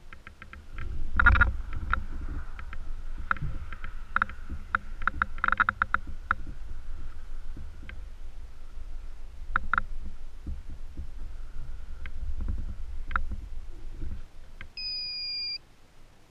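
Low rumble of wind and handling on a small camera's microphone, with scattered clicks and a faint steady whine. Near the end comes one short, high electronic beep.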